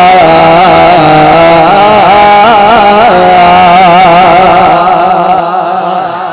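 Man singing a naat into a microphone, drawing out a long ornamented note that wavers up and down, fading out about five seconds in.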